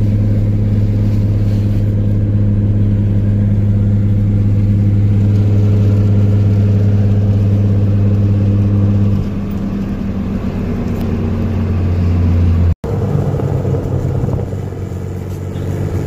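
A car engine running steadily at a held speed, with a deep drone. It drops back and changes at about nine seconds. The sound cuts out for an instant near the end, then the engine noise carries on.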